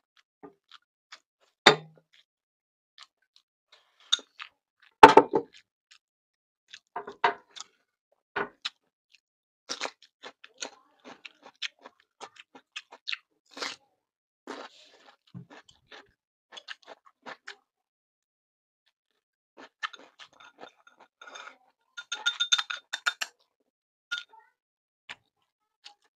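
Someone eating fried tofu with rice: intermittent chewing and crunching, with scattered sharp clicks. Near the end a short cluster of clinks rings briefly, like utensils against a bowl.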